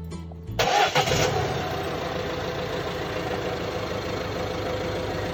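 Peugeot Partner van's engine cranking and catching about half a second in, then settling into a steady idle.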